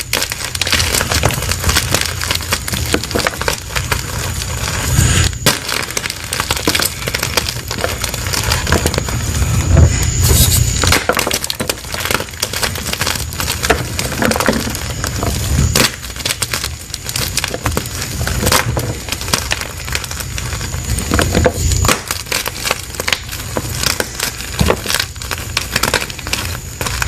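Plain gym chalk blocks crushed by hand, giving a dense, continuous crunching and crumbling of dry chalk.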